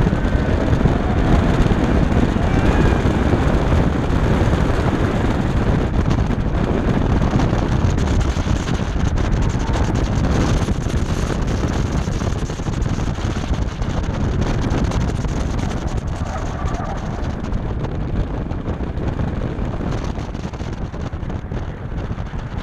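BMW F10 535i's turbocharged inline-six running hard through an autocross lap, mixed with heavy wind buffeting on the microphone.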